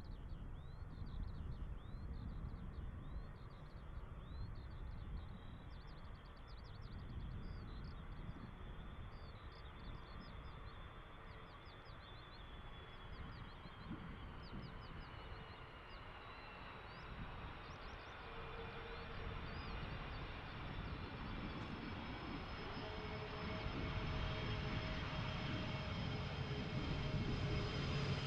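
Airbus A330 jet airliner approaching: a distant jet engine rumble and whine that grow steadily louder through the second half, the whine's tones sliding slowly down in pitch. Birds chirp busily through the first half.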